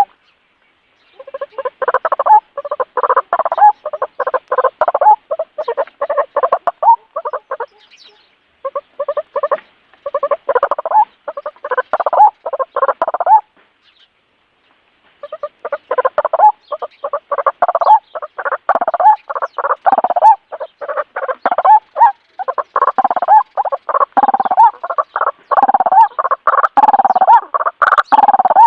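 A bird calling in fast runs of short, repeated notes, several a second, in bouts that break off briefly about a second in, around eight seconds in and around fourteen seconds in.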